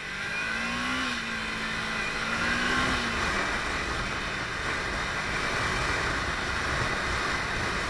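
Kawasaki Ninja 300's parallel-twin engine accelerating, its note climbing in pitch over the first few seconds, then a steady rush of wind noise as the motorcycle runs on at speed.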